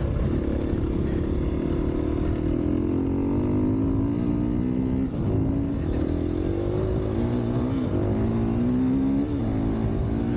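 250 cc dirt bike engine under way, its revs climbing and then dropping sharply several times with throttle and gear changes, over a low rumble of wind on the helmet microphone.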